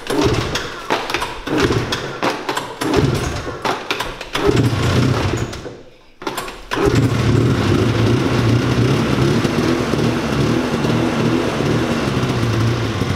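Snowmobile engine being started: it fires unevenly and catches briefly in the first few seconds, dies just before six seconds in, then restarts about a second later and runs steadily.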